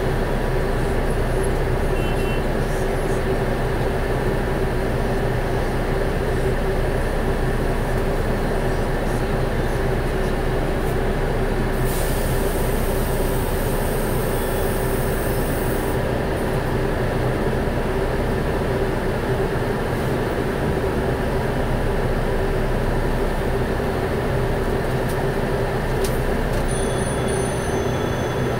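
Router motor on a shop-built pantorouter running steadily at full speed as its bit cuts finger joints in a pine board. A higher hiss is added for about four seconds midway.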